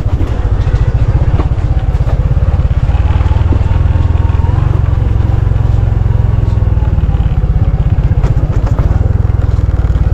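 Motorcycle engine running, a loud, rapid, steady low pulse.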